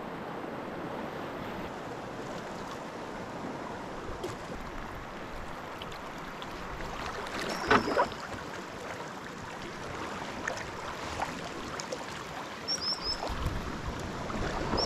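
Steady rush of river water around a paddled canoe, with one louder, sharper sound about eight seconds in and a few short high chirps near the end.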